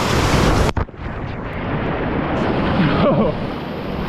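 Loud rush of surf as a breaking wave swamps a small boat, with wind buffeting the microphone; the sound cuts out for an instant just under a second in.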